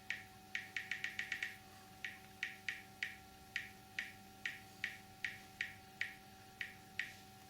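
Irregular clicks of typing on a smartphone's on-screen keyboard while a password is entered, with a quick run of taps about a second in, then one roughly every half second.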